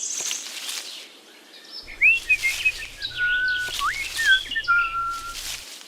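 Bird-like chirping: a run of short whistled notes, some swooping up, some held level, over a steady low hum.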